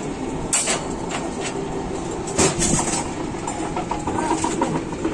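Rebar bending machine running, a steady mechanical rattle from its drive. Two sharp metal clanks, about half a second in and about two and a half seconds in, come from the steel bars on the machine.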